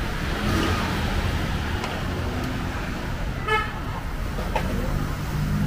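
Street traffic noise over the steady hiss of battered bananas deep-frying in a wok of oil, with a short vehicle horn toot about three and a half seconds in.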